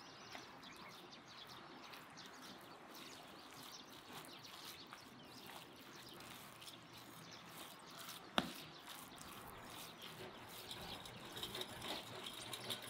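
Faint outdoor ambience with scattered small clicks and occasional bird chirps, and a single sharp knock a little past eight seconds in.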